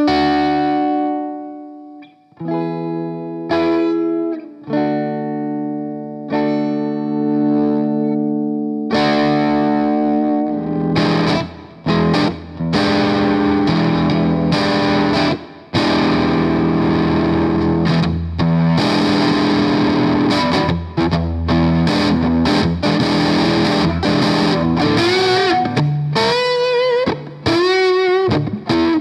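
Electric guitar played through a Boss BD-2 Blues Driver overdrive pedal. Three held, ringing chords open the passage, then from about nine seconds in comes denser driven playing, with bent notes near the end.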